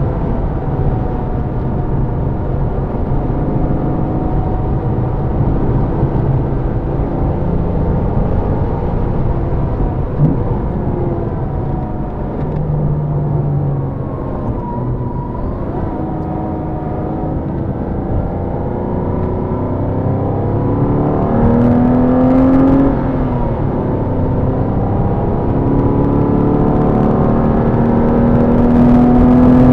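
Porsche engine accelerating hard on a race track: its pitch climbs, drops at a gear change, then climbs again, over a steady rush of tyre and wind noise.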